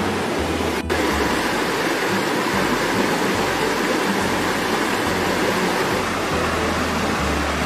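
River water rushing over rocks, a steady wash of noise, with a brief break in the sound just under a second in.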